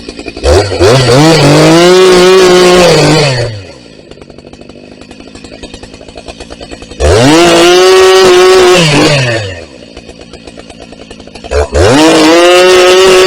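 Husqvarna 380 CD two-stroke chainsaw run up to full throttle three times, each time holding high for two to three seconds, sagging slightly as it bites into a birch stem, then falling back to a pulsing idle.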